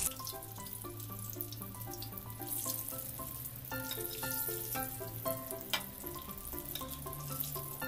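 Sweet potato bondas deep-frying in hot oil, a steady bubbling sizzle; the sizzling goes on until they are fully fried. Background music plays a melody over it.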